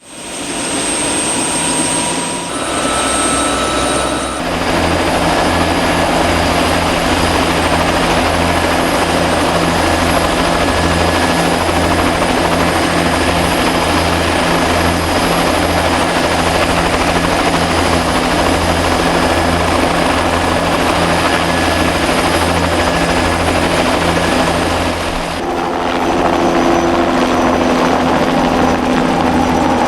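Bell 206B-3 JetRanger III helicopter running: a steady high turbine whine over the pulsing beat of the main rotor. The sound changes abruptly a couple of seconds in, again shortly after, and near the end, as if cut between shots.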